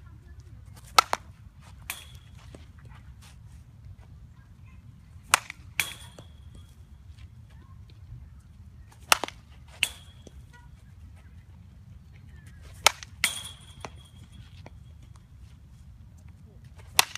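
Softball bat striking balls in batting practice: a sharp crack about every four seconds, each followed about half a second later by a second crack with a short metallic ring.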